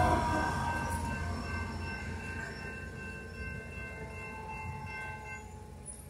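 Amtrak California San Joaquin passenger train rolling away from a grade crossing, its rumble fading steadily. Steady high ringing tones run over it and die out about five and a half seconds in.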